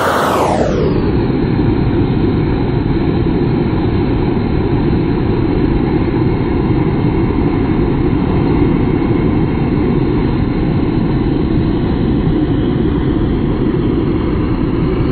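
Handheld gas burner torch running steadily, its flame played across timber decking boards to char the surface in the shou sugi ban method. The sound is an even, muffled rush of flame with little high end and no breaks.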